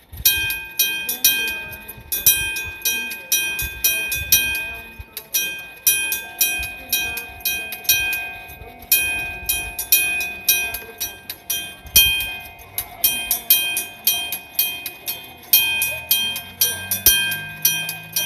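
Electric-bell (電鍾式) railway level-crossing alarm ringing: a metal gong struck over and over in a steady rhythm, each strike leaving a bright ringing tone. It starts suddenly and warns that a train is approaching. A low hum joins in near the end.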